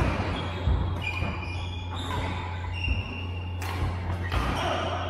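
Badminton rackets striking shuttlecocks in sharp, separate hits, with short high squeaks from court shoes on the mats, over a steady low hum.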